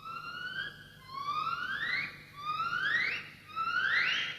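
Electronic sound effect of rising whooping tones, like a whooping alarm, repeating about every 1.3 seconds, with about four whoops. It comes from the strange object the character has just touched.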